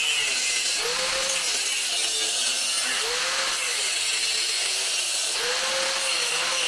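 Angle grinder cutting into a steel exhaust pipe, a steady grinding whine whose pitch swells and sags about every two seconds.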